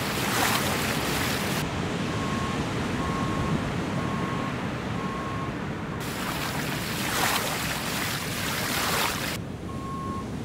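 Ocean surf: a steady wash of water with waves breaking at the start and again from about six to nine seconds in. A vehicle's reversing beeper sounds in evenly spaced beeps at one pitch, about one and a half a second, through the middle and again near the end.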